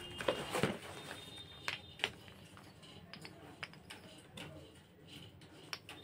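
Small terracotta clay diyas clicking and clinking against one another as they are lifted out of a packing box, with light rustling of paper wrapping; the clicks come singly and irregularly, a few sharper ones standing out.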